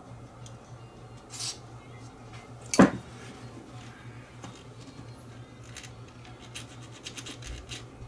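A short spray of aerosol contact cleaner into a radio's rotary encoder switch, then one loud knock, then a run of small clicks near the end as the encoder knob is turned to work the cleaner in. A steady low hum sits underneath.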